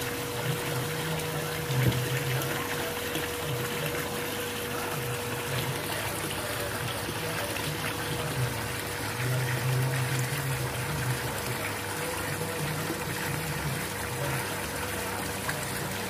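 Intex LED pool waterfall pouring a steady sheet of water that splashes into the pool's surface, with a constant hum underneath.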